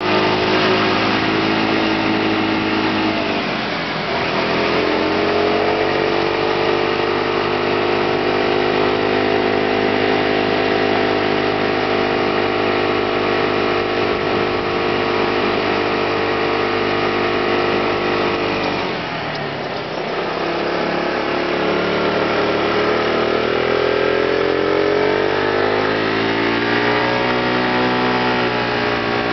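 Motor scooter engine running under way on the road, its pitch dropping briefly about four seconds in and again a little past halfway, then climbing steadily near the end.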